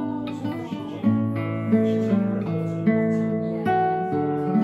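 Background music: acoustic guitar, plucked notes and chords.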